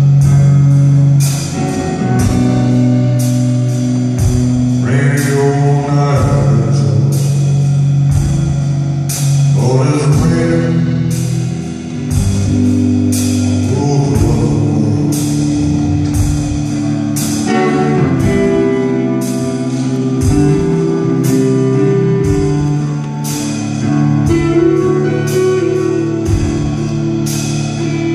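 Live slow blues: an electric guitar plays an instrumental passage of held and bending notes over a drum kit keeping a slow, steady beat.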